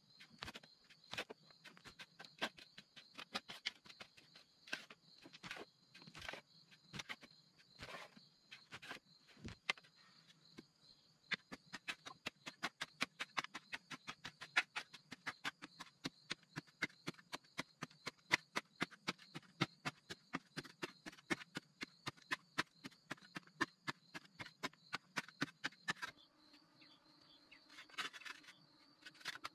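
Hand digging tools chipping and scraping at packed sandy soil: scattered strikes at first, then a quick steady run of about four or five strokes a second. Insects drone steadily in the background, and a low hum comes in near the end.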